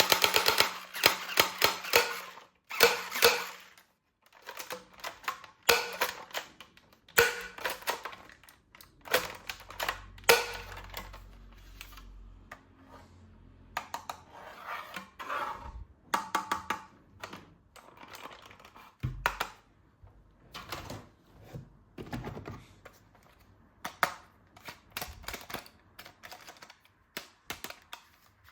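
Plastic toy guns and parts being handled: irregular clicks, snaps and clatter, some in quick little runs.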